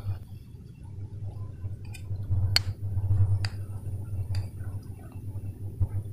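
Kitchen utensils clinking sharply about three times near the middle, over a low, uneven hum.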